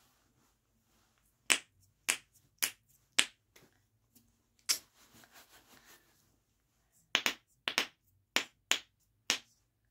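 Plastic fidget snapper toys being snapped by hand: about a dozen sharp snaps at uneven intervals, with a short pause in the middle and a quicker run of snaps near the end.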